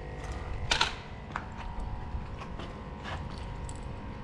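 A few short, sharp clicks and taps, the loudest about three quarters of a second in, over a low steady rumble.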